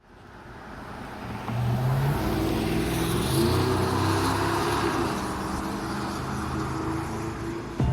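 Background music fading in from silence and then playing steadily: a low bass line moving between held notes.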